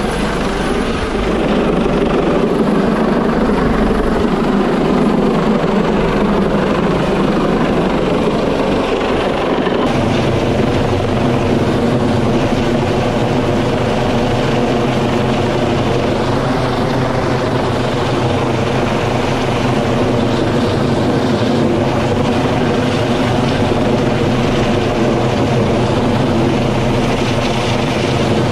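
U.S. Coast Guard MH-65 Dolphin helicopter hovering overhead during a rescue-basket hoist, its rotor and turbines running loud and steady. About ten seconds in the sound changes from a heavier low rumble to a steadier hum of several held tones.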